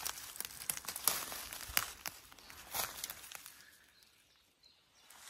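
Footsteps crunching and crackling through dry forest-floor litter, a sharp crackle every fraction of a second, thinning out and going quiet about three and a half seconds in.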